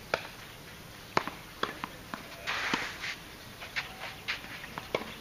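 Tennis played on a clay court: a string of sharp knocks from racket strikes and ball bounces, the two loudest near the start and about a second in, with a brief scuffing noise around the middle.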